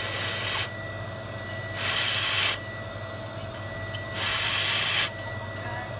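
Three short hissing blasts of pressurised gas, each under a second long, about a second and a half apart. A faint steady high whine and a low hum run underneath.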